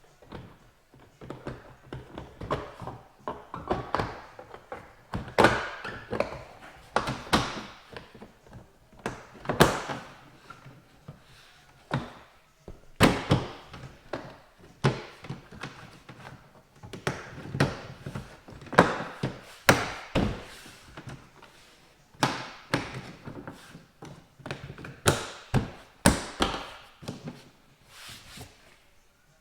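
Irregular thunks and taps of a plastic sliding-door trim panel on a Dodge Grand Caravan being pushed and knocked back onto the door, seating its push-pin clips. The knocks come singly and in quick clusters.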